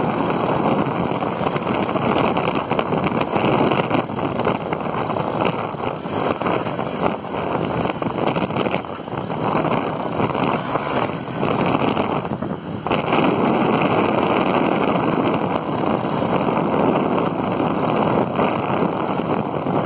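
Honda single-cylinder motorcycle engine running, heard from a second moving bike alongside, largely covered by heavy wind rush on the microphone.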